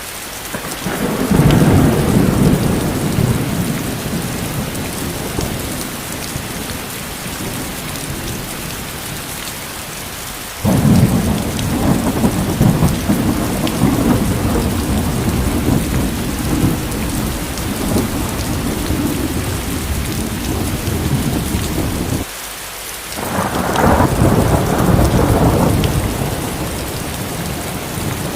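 Steady rain with rolling thunder. Three long, low rumbles come through: the first builds about a second in, the second breaks suddenly near the middle, and the third swells about three-quarters of the way through.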